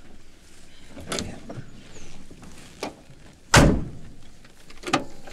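Car doors shutting: a few lighter knocks, then one heavy door slam about three and a half seconds in, and another knock near the end.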